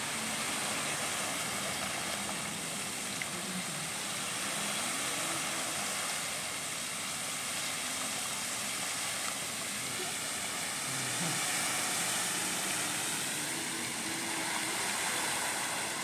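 A lake fountain's many arching water jets spraying and falling back onto the water, with a steady hiss of spray.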